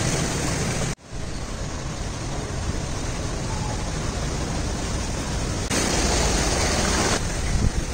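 Steady rushing hiss of floodwater flowing across a road. It cuts out for an instant about a second in, then carries on.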